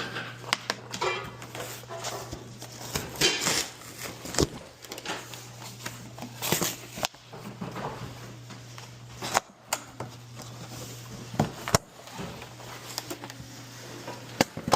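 Irregular knocks, clicks and rustling as a large TV and its packaging are handled and pulled apart, over a steady low hum.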